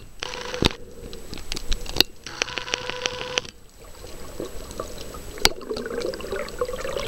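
Sea water swirling and rushing around a camera held underwater, muffled, with a few sharp clicks and knocks on the housing. About two and a half seconds in, a buzz of rapid ticks, about ten a second, lasts roughly a second.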